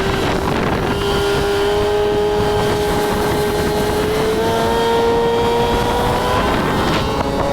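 Boat motor running under way, its tone climbing slowly as it speeds up, over a steady rush of wind and water.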